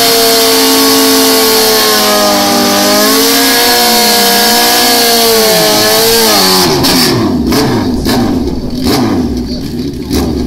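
Drag-racing motorcycle doing a burnout: the engine is held at high, wavering revs while the rear tyre spins on the wetted track, with a loud hiss from the spinning tyre. About seven seconds in the revs drop and the engine runs lower and more unevenly.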